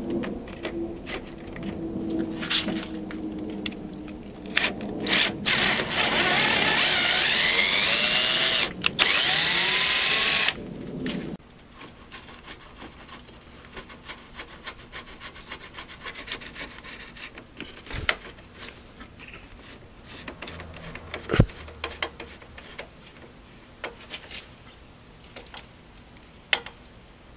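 Cordless drill turning an M6x1.0 tap to cut threads for a mounting bolt, its motor whine rising and falling in pitch as the speed changes. It stops suddenly about eleven seconds in, leaving only light clicks and scrapes from hand-threading the bolts with a screwdriver.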